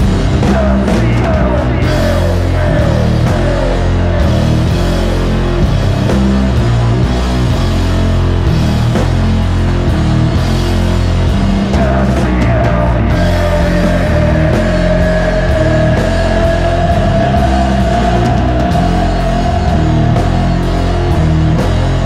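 Loud rock music with a steady beat and a long high note held through much of the second half.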